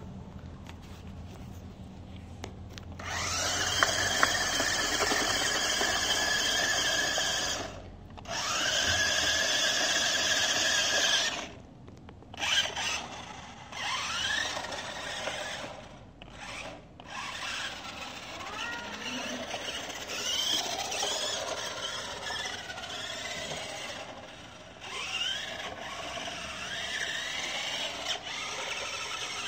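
Tyco Jack Nife radio-controlled toy truck's electric motor and gears whining as it drives. The whine starts about three seconds in, runs steadily with brief breaks, then comes in shorter bursts that rise and fall in pitch as the truck speeds up, slows and turns.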